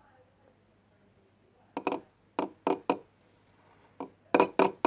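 Spoon clinking against a bowl with a ringing note, in two quick runs of strikes, while gouache paint is being worked into the glue-and-water slime mix.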